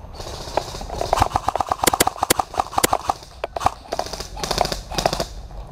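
Airsoft electric rifles firing on full-auto: a fast string of sharp clicks lasting about two seconds from about a second in, then shorter bursts near the end.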